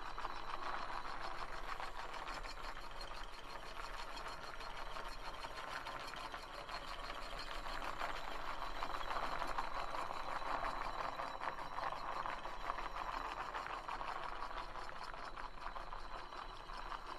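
Homemade V-type electromagnetic engine model of ice-cream sticks and copper coils, running on 12 V DC and turning a disc propeller through its shafts and reduction gear, with a fast, even mechanical rattle. The rattle swells louder for a few seconds in the middle.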